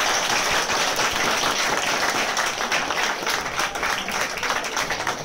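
Audience applauding, the clapping thinning a little toward the end.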